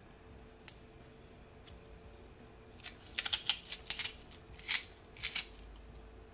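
A raw onion slice being cut with a chef's knife held in the hand, giving a quick run of short crisp crunches and crackles from about three seconds in.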